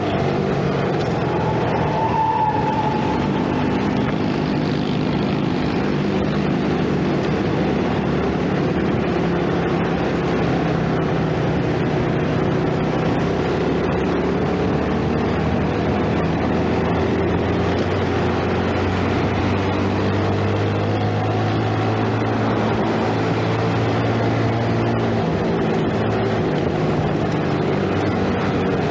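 2012 Yamaha Jupiter Z 115cc underbone motorcycle's single-cylinder four-stroke engine running while being ridden, its pitch rising and falling gently with the throttle, with road and wind noise.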